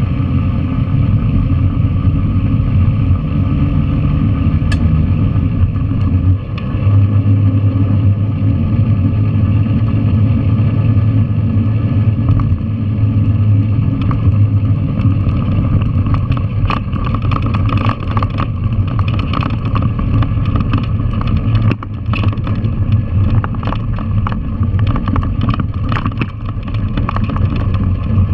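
Yamaha TW200's single-cylinder four-stroke engine running steadily as the bike rides a rough gravel road, with a short drop in the engine note about six and a half seconds in. Many short clicks and knocks from the rough surface are heard through the second half.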